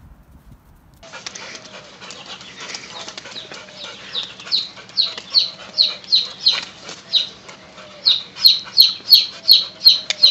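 Short, high-pitched animal calls that start about a second in and repeat about twice a second, each falling slightly in pitch, growing much louder from about four seconds in.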